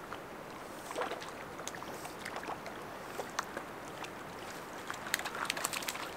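Water splashing at the shoreline as a small hooked fish thrashes at the surface while it is brought in and landed, with scattered splashes and a quick run of them near the end.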